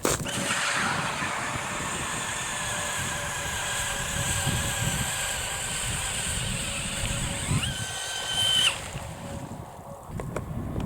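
A 20-volt cordless drill turning an Eskimo 8-inch pistol bit ice auger, drilling a hole through lake ice with a steady motor whine. About eight seconds in, the whine rises sharply in pitch, holds briefly, then stops.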